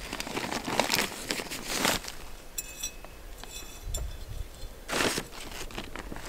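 A plastic bag of potting substrate crinkles and a hand trowel scoops and scrapes loose soil, in several short rustling bursts. A brief high ringing tone sounds about halfway through.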